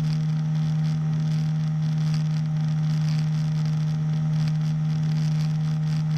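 Small engine of a powered hang glider running steadily at constant power, a steady low drone with a higher hum over it, against a hiss of rushing air.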